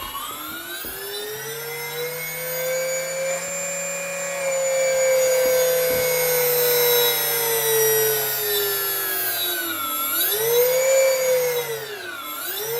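Electric motor of an E384 fixed-wing drone run up on the throttle with its propeller removed, spinning unloaded: a whine that climbs, holds steady for several seconds, then drops and climbs again twice near the end as the throttle is eased back and opened.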